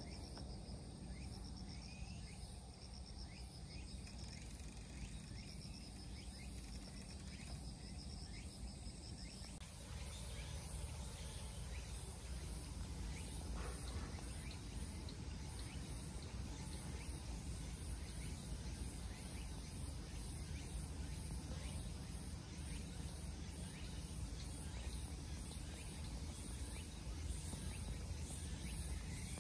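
Outdoor ambience: high insect calls pulsing at an even rhythm over a steady low rumble.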